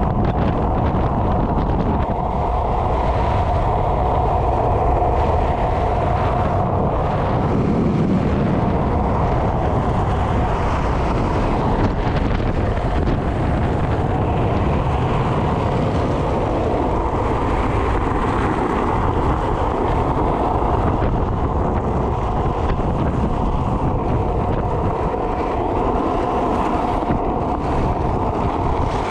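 Steady rush of wind over the microphone with the rumble of wheels rolling on asphalt at downhill speed.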